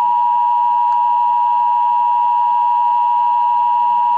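Emergency Alert System attention signal: a loud, steady two-tone electronic tone held without a break.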